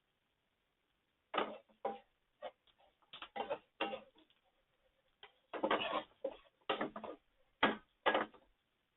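Utensil scraping and clattering in a frying pan, in irregular short strokes with brief pauses between them.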